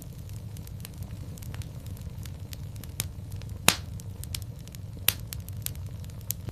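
Wood fire in a fireplace crackling: scattered sharp pops and snaps over a steady low rumble, with the loudest pop a little past halfway and another strong one about five seconds in.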